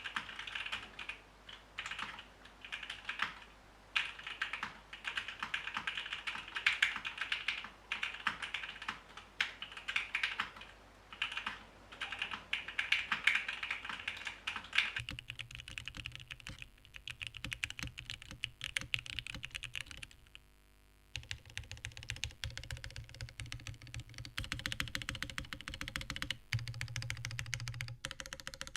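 Typing on a TGR Jane ME mechanical keyboard with Gateron Oil King linear switches in a polycarbonate plate, O-ring mounted: fast, continuous keystrokes with short pauses. About halfway through the typing takes on a lower, deeper sound.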